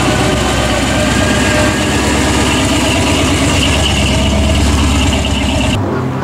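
A drag car's engine idling steadily with a deep rumble as the car rolls slowly past. The engine sound stops abruptly near the end.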